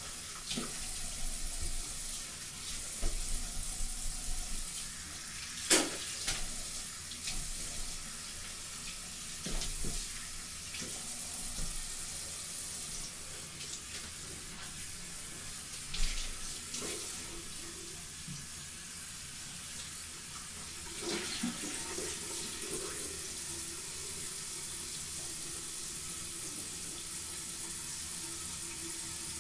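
Bathroom sink tap running steadily, with a few sharp knocks around the basin.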